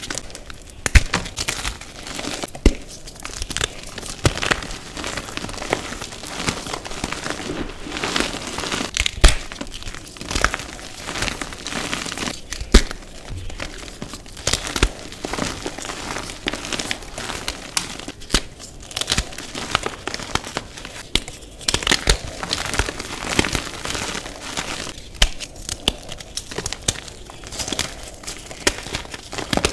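Blocks of green-dyed reformed gym chalk being crumbled and crushed by hand: a continuous gritty crunching and crackling, broken by frequent sharp snaps at irregular moments as pieces break apart.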